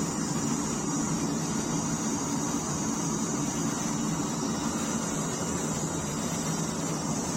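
Metal-melting furnace running, its burner and blower giving a steady, even rushing noise with no change.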